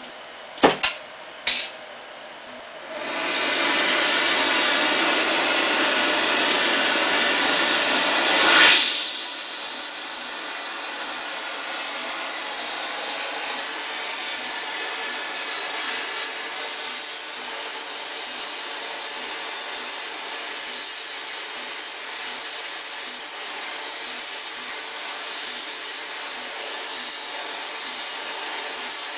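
A few sharp clicks, then an oxy-acetylene torch with a heating tip lights and runs with a loud, steady hiss from about three seconds in. The flame swells briefly near nine seconds, then holds an even hiss while it heats the metal.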